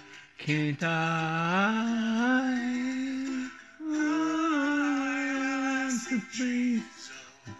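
A man singing slow, long held notes that slide up and down in pitch, with short breaks for breath between phrases.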